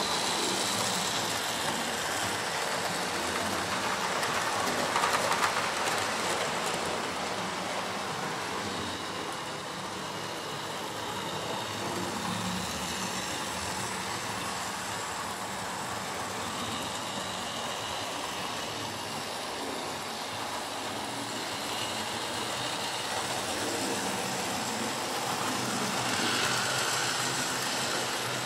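A model InterCity 125 train running steadily along the model railway track.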